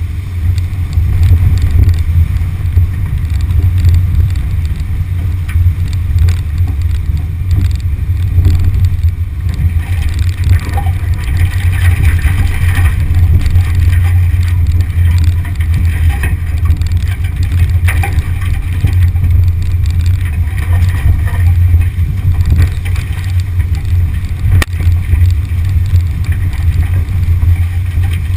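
1974 VW Beetle, with its 1600cc air-cooled flat-four, driving over a rutted, muddy track, heard from a camera on the car body as a loud, steady low rumble. A few sharp knocks stand out.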